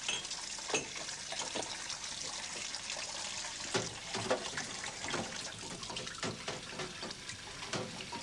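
Washing up in a stainless steel sink: steady running and splashing water, with scattered small clinks and knocks of dishes.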